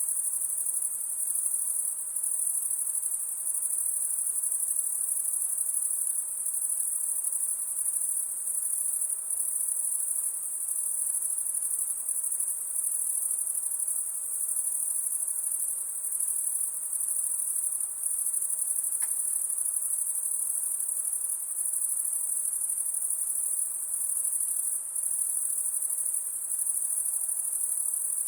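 Crickets chirping in a dense, unbroken high-pitched chorus, steady throughout with only slight brief dips in loudness.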